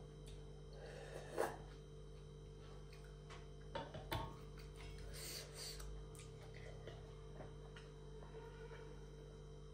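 Faint mukbang eating sounds: a few soft clicks and smacks of someone eating, the loudest about a second and a half in and two more around four seconds in, over a steady low hum.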